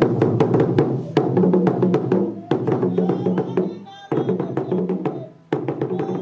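Percussion music: drums with rapid, sharp knocking strokes in a driving rhythm, dipping briefly about four and five and a half seconds in.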